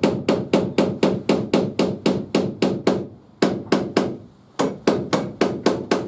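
Hammer tapping the retaining pin into a garage door's cable cone (drum) on the torsion shaft, in quick even blows of about four a second, with two short pauses near the middle.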